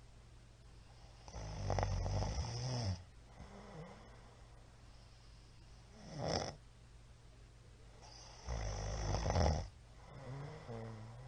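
A middle-aged man snoring loudly in his sleep. Two long, loud, rasping snores come about seven seconds apart, with a brief loud one between them and a softer one near the end.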